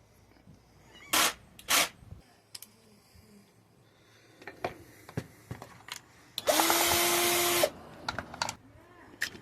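Two short loud bursts about a second in, then scattered clicks and knocks of tools and parts being handled, and a power drill running once for about a second with a steady whine.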